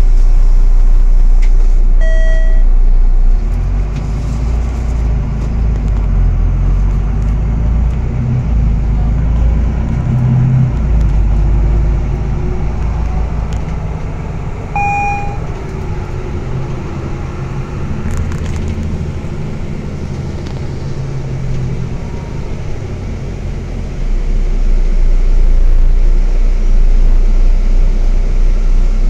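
Interior rumble of a moving bus: engine and road noise, dropping a few seconds in and rising again near the end. Two brief beeps sound, one about two seconds in and one about halfway.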